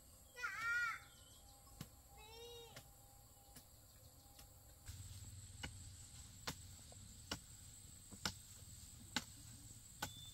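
Two short arching animal calls in the first few seconds. From about halfway through comes a steady low hum with sharp knocks, roughly one a second.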